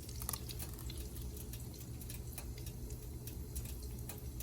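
Faint, irregular crackling of hot frying oil, a few scattered pops a second, over a steady low hum.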